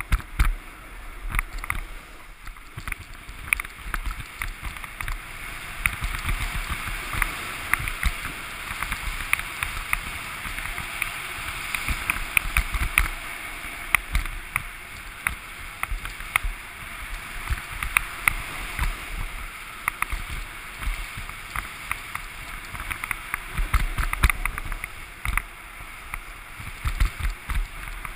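Snowboard sliding and carving over groomed corduroy snow: a continuous scraping hiss that rises and falls with the turns. Frequent sharp clicks and bursts of low wind rumble on the helmet-mounted camera.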